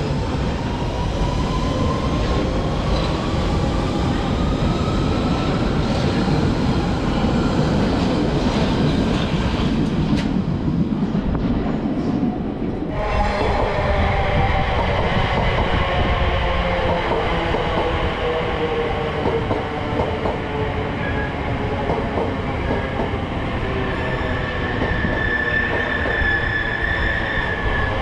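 London Underground 1992 stock Central line train pulling out, its wheels rumbling and its traction motor whine rising in pitch over the first few seconds. About halfway through, the whine of a second electric train on the next track takes over and falls in pitch as that train slows, with a high steady squeal near the end.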